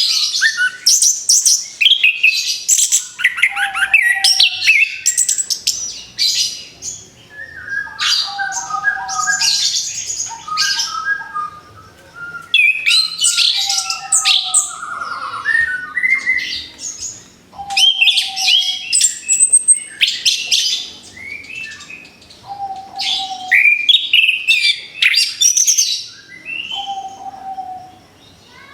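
Orange-headed thrush singing in a string of phrases, one every four or five seconds. Each opens with a short low whistle and breaks into rapid, varied high notes.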